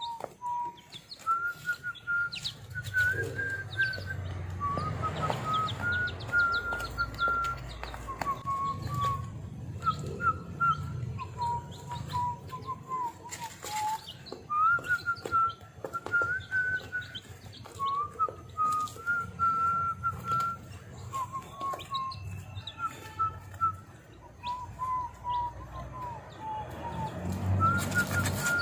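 Week-old chicks chirping while they peck at feed, short high peeps scattered throughout, over a string of held whistled notes that step up and down in pitch like a tune.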